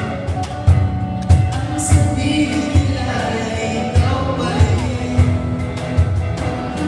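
Live pop song from a small band: singers with a steady drum beat and accompaniment.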